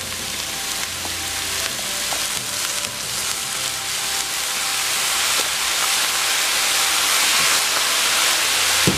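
Cauliflower rice and vegetables sizzling in a hot frying pan as Worcestershire sauce is poured in, the sizzle growing steadily louder.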